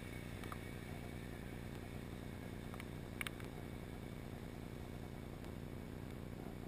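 Steady low underwater noise picked up by a submerged camera, with a few faint clicks, the loudest a short double click about three seconds in.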